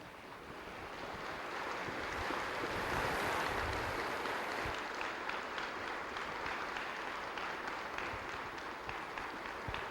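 Audience applauding, building up over the first few seconds and then holding steady.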